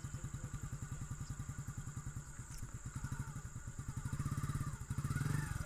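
Hero motorcycle's single-cylinder engine running at low revs, an even rapid putter, growing louder for about the last second and a half as the revs rise a little.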